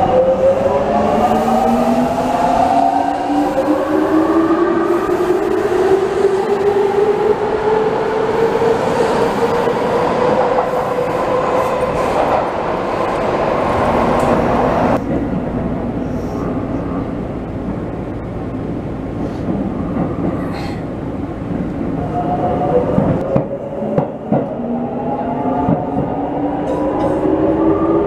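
Electric subway train pulling out of a station: its motors whine in a rising pitch as it accelerates over the rolling noise of wheels on rail. The sound changes suddenly about halfway, and near the end a new rising motor whine begins as a train accelerates again.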